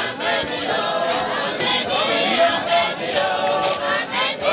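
A crowd of mourners singing together without instruments.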